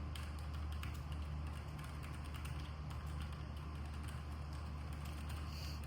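Typing on a Keychron K5 Max low-profile mechanical keyboard with Gateron Brown switches: a continuous run of soft key clacks.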